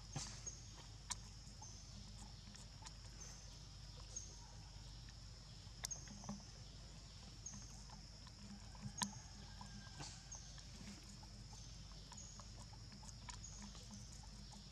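Faint outdoor ambience: a steady high-pitched hum with short chirps repeating irregularly, about once a second, and a few sharp clicks, the loudest about nine seconds in.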